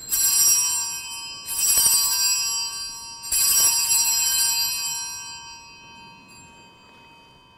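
Altar bell struck three times, each stroke ringing on with several clear tones and slowly fading. It marks the elevation of the chalice after the consecration at Mass.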